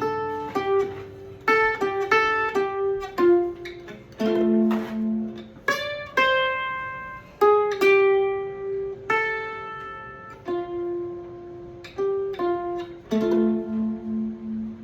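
Loar 310 electric mandolin playing a key-of-F bluegrass turnaround: single picked notes and two-note double stops, each ringing and dying away, ending on a held chord.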